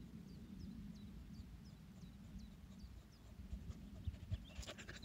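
A bird repeating short, high, falling notes about three times a second over a low wind rumble. Near the end, footsteps of a person and dogs pass close by.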